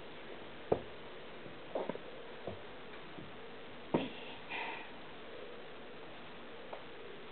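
A baby's faint sniffs and breathy sounds with a few soft clicks, over quiet room tone.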